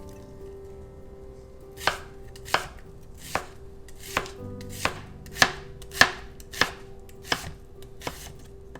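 Kitchen knife chopping on a cutting board, about ten separate slow chops at an unhurried, even pace, starting about two seconds in.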